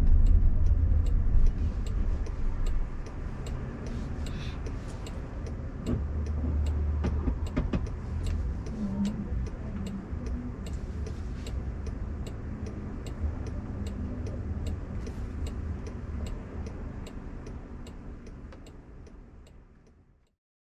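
Road and tyre rumble inside the cabin of a Waymo Jaguar I-Pace robotaxi as it drives, with a faint regular ticking over it. The sound fades down steadily and cuts out near the end.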